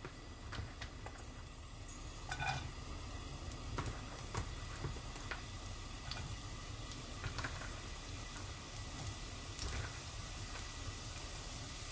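Faint sizzling of hot oil in a nonstick wok, with scattered small clicks and taps as julienned carrot strips are dropped in to stir-fry.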